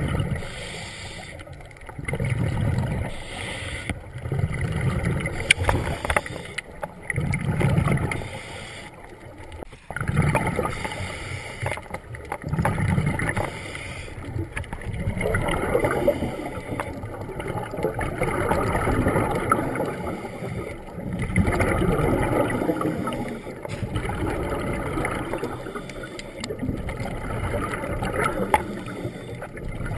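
Muffled underwater water noise picked up by a camera in a waterproof housing as a diver swims: low surges about every two to three seconds, then a denser rushing hiss from about halfway through.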